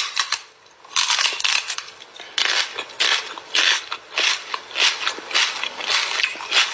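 A man kissing a cat's head over and over: quick, sharp lip smacks coming about two or three a second, starting about a second in.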